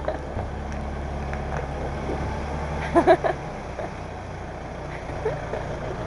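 A steady low machine hum, with a short voice sound about halfway through.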